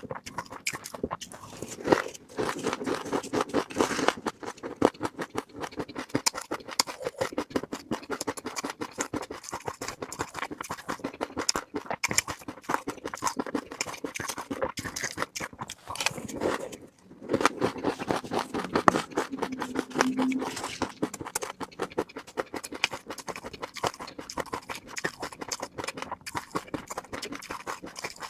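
Fish roe being handled close up for ASMR: a dense, continuous crackle of tiny clicks, with a brief pause a little past halfway.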